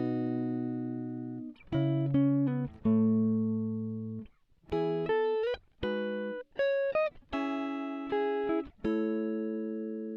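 Background music of plucked guitar notes and chords, each struck sharply and ringing out before the next.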